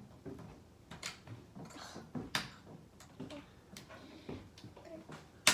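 Scattered light clicks and taps of small plastic toys being handled on a table, with one sharp snap near the end.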